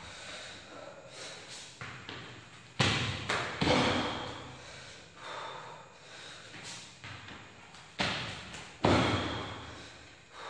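Hands and bare feet thudding and slapping on a gym floor mat during burpee-like toe-touch reps. The impacts come in clusters about five seconds apart, around three seconds in and again around eight and nine seconds in, each trailing off in the room's echo.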